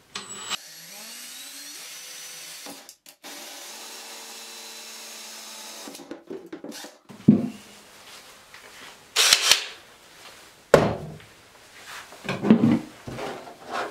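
Cordless Ryobi drill driving a 1-1/8 inch hole saw through a plastic tote. The motor spins up with a rising whine, runs steadily for about five seconds with one short break, and stops. Several separate knocks and clatters follow as the tote is handled.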